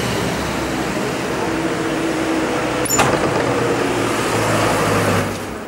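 Street traffic noise with a steady low engine hum. A single sharp click comes about three seconds in, and the noise falls away a little near the end.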